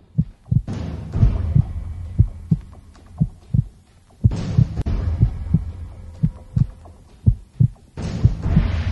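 Heartbeat sound effect: low thumps in lub-dub pairs about once a second over a low hum. A rushing swell of noise rises about a second in, again near the middle, and again near the end.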